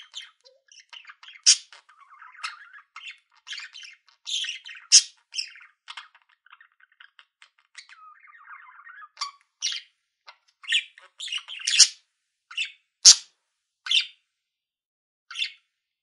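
Kea calling: a string of short, irregular squawks and chirps, the loudest about thirteen seconds in.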